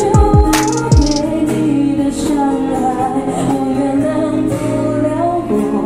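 A song with a woman singing, with a few deep falling bass hits in the first second.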